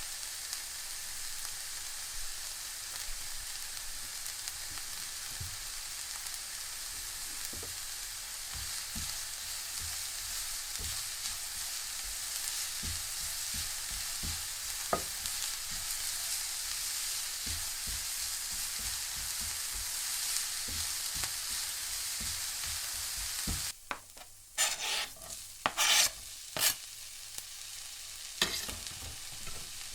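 Beef frying in a pan: a steady sizzle, with scattered knocks and scrapes of a utensil stirring it. About 24 seconds in the sizzle cuts off abruptly, followed by a handful of short, louder rushes of noise.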